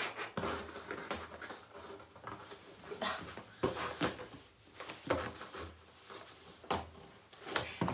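Fingers scratching and picking at the packing tape of a large cardboard box, with irregular scrapes, rustles and light knocks as the box is handled and pulled at by hand.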